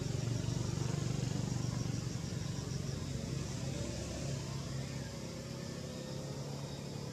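Steady low hum of a motor vehicle engine running, a little louder in the first few seconds, with a faint high hiss above it.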